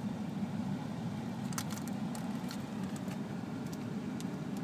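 Steady low rumble of a car's cabin while driving, with a few light clicks of small plastic toys and packaging being handled.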